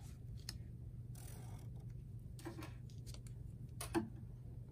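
Faint scratch of a black permanent marker drawing a line along a ruler on paper, with a few light clicks and a soft knock near the end as the plastic ruler is shifted on the table.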